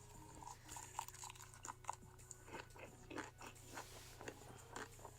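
Faint ASMR mukbang eating sounds: a person chewing a big mouthful, with irregular small crunches and mouth clicks.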